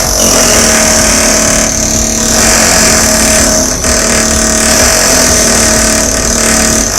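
Construction power tool running steadily and loudly, a motor noise with a constant whine.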